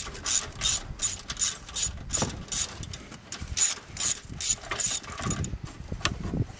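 Ratchet wrench with an extension and a 10 mm socket clicking rapidly, about three clicks a second, as it is swung back and forth to loosen a headlight mounting bolt. The clicking thins out near the end as the bolt comes free.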